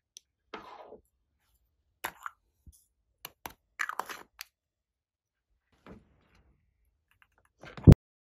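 Small plastic glitter jar being handled and its lid opened: scattered soft clicks and rustles with quiet gaps between. Near the end comes one sharp knock, the loudest sound.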